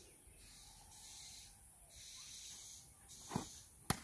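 A wooden cricket bat strikes a ball with a single sharp crack near the end, about half a second after a duller thud. A faint, pulsing high hiss runs underneath.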